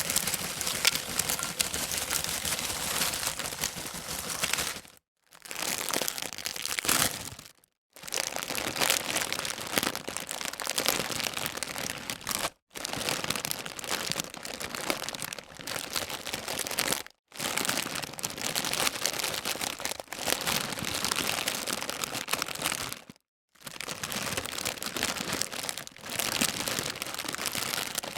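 Large plastic-foil chip bag being handled, crinkling and crackling continuously in several takes separated by short silent gaps.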